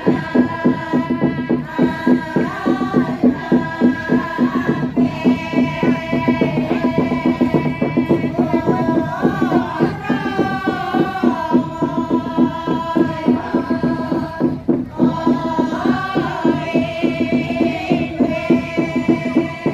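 Women pa'katia dancers singing the pa'katia chant together, long held notes with slow bends in pitch, over a steady pulsing beat about three times a second.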